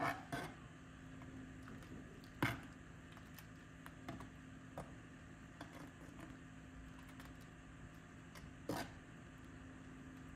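Metal ladle knocking and scraping against the sides of an enamelled cast-iron pot while thick lentil soup is stirred: a few sharp knocks, the loudest about two and a half seconds in, with softer ticks between, over a faint steady hum.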